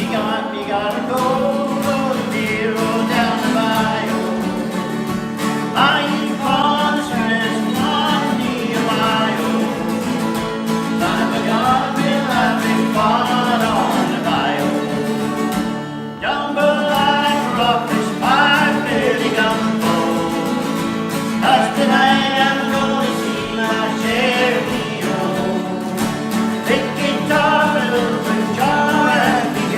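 Country-style song with acoustic guitar and singing, with a brief dip about halfway through.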